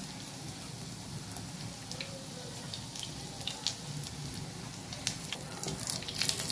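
Potato cutlets shallow-frying in hot oil: a steady sizzle scattered with sharp crackling pops, which come thicker near the end.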